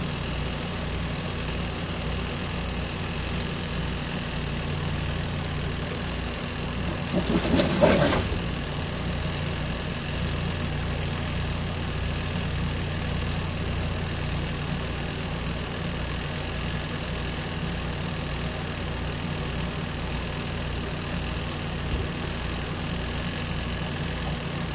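Compact RV washing machine running: a steady, quiet motor hum with an even low throb of a few beats a second, and a brief louder sound about eight seconds in.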